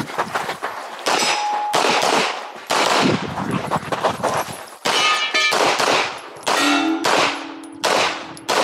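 Rapid close-range pistol fire from a CZ Shadow 2 competition pistol, shots coming in quick pairs and strings. Steel targets ring after hits, with a long ring in the last couple of seconds.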